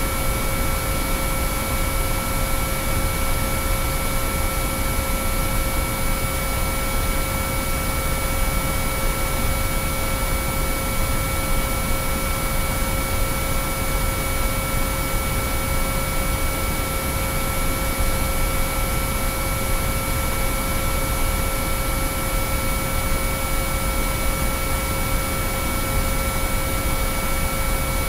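Binaural-beat track of pure sine tones: several steady tones held at different pitches, from a mid-pitched one up to two very high ones, over a constant hiss of noise, unchanging throughout.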